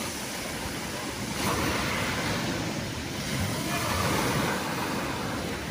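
Small sea waves breaking and washing up a pebble beach, with two louder surges about a second and a half and four seconds in.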